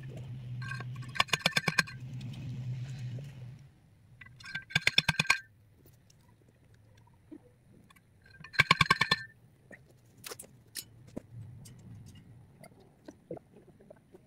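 A hand-held steel T-post driver is slammed down onto a steel fence T-post three times, a few seconds apart. Each strike is a metallic clang that rings with a quick rattle.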